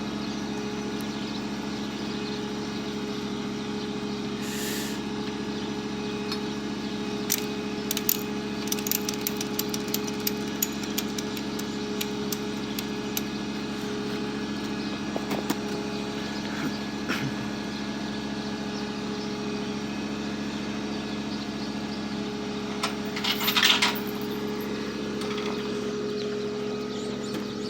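A 1996 Chevy Cavalier's rod-knocking engine running steadily under way, a low steady drone, with scattered clicks and rattles and one brief louder rattle late on.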